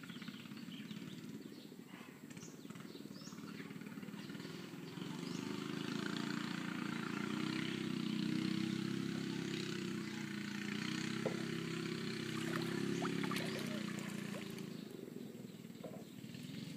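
A motor engine running, swelling from about five seconds in and fading again near the end, with a few small water splashes as a net is handled in shallow water.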